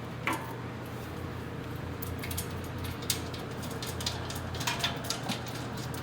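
Scattered light clicks and clinks of metal bolts and screws being handled and fitted into chair parts during assembly, the loudest a few sharp knocks a little after halfway.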